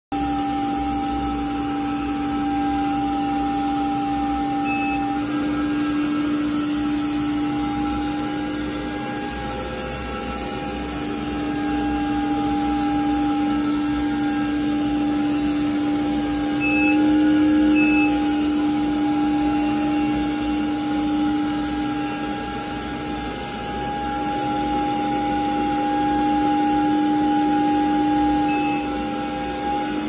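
Window-cleaning robot running on a tiled wall, its suction fan motor droning steadily with a constant hum, swelling and dipping slightly in loudness as it moves.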